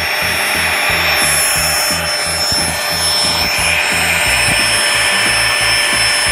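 Built-in electric air pump of an Aerogogo inflatable sofa running steadily, a high whine over a rush of air as it inflates the sofa.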